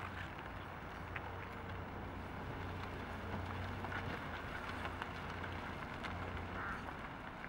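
Toyota Yaris driving slowly around a curve, its engine a steady low hum under tyre noise on the asphalt, with a short squeak near the end.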